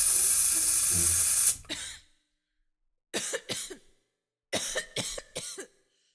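A loud hiss for about a second and a half, then a person coughing in two short fits of a few coughs each.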